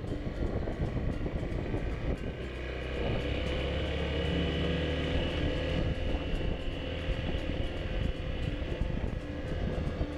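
Honda motorcycle engine running steadily while riding, with wind and road noise, over a broken, uneven road surface.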